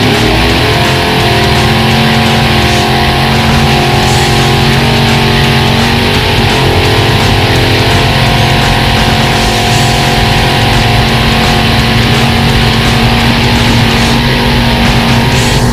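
Loud rock music led by electric guitar, a heavy, dense sound held at a steady level.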